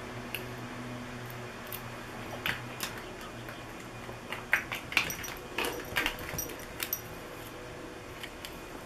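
Two ferrets playing with a mini Easter egg: a flurry of short clicks and knocks in the middle, over a steady low hum.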